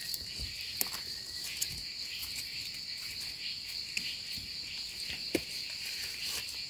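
Steady high-pitched insect drone, with a few faint clicks and scrapes as a knife cuts mushroom stems from the soil.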